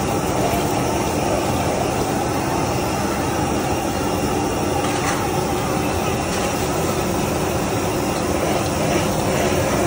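Steady, loud rushing roar of a stir-fry kitchen's gas wok burner, with indistinct voices beneath.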